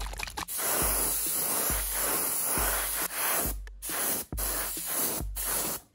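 Airbrush spraying fluorescent UV-active yellow base-coat paint onto a wooden stick bait lure: a steady hiss of air and paint, in a few long bursts with short breaks between them.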